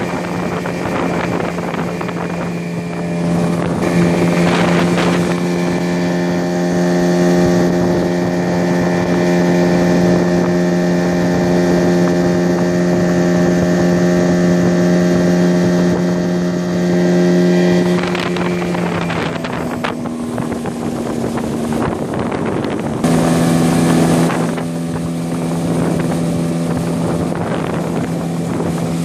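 Yamaha 9.9 GMHS two-stroke twin outboard motor running steadily at speed, driving a loaded boat, with wind buffeting the microphone. The new engine is at the end of its break-in. Its note sags lower for a few seconds about two-thirds of the way through, then picks back up.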